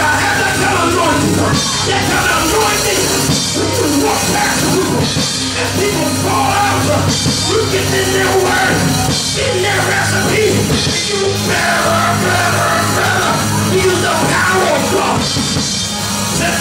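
Loud live church music with sustained low chords and drums, and a man's voice shouting and singing over it through a microphone.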